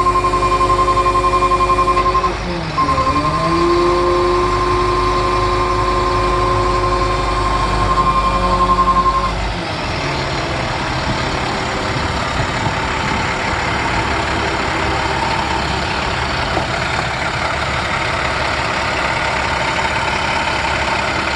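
Bucket truck's International DT466 turbo diesel running, with a steady high whine over a deep rumble. The pitch dips briefly about two and a half seconds in. About ten seconds in, the whine and the rumble stop, leaving a rougher, noisier running sound.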